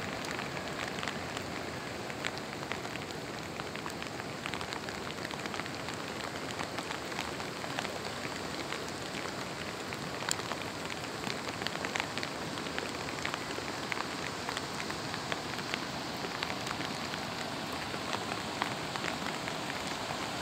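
Steady rain falling, with many separate drops ticking sharply close to the microphone.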